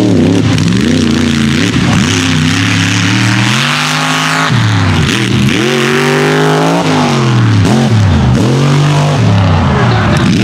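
Mega mud truck's supercharged engine running at high revs, its pitch climbing and falling again and again as the throttle is opened and eased while the truck drives through the mud course.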